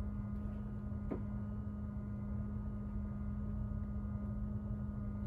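A steady low electrical hum, with one faint click about a second in.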